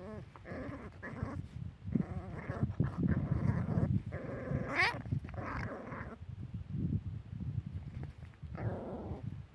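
Mother dog and her puppy play-fighting: low growling under repeated whining squeals, with one sharp rising yelp a little under five seconds in.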